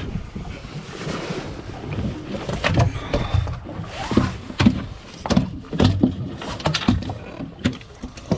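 Waves slapping a small boat's hull in a choppy, windy bay, with wind on the microphone and a run of irregular knocks and thumps on board.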